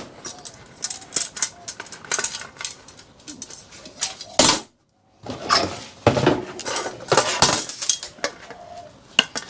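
Steel server-chassis parts and hand tools clinking and clattering as the chassis is taken apart, with irregular sharp metallic knocks. The sound cuts out for about half a second near the middle.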